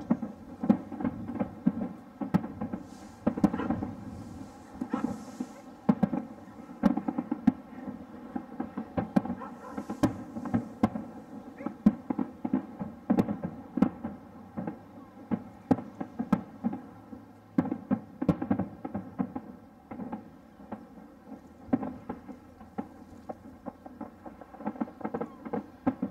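Distant aerial fireworks: a steady, irregular string of shell bursts and pops, several a second, with a few louder bangs standing out.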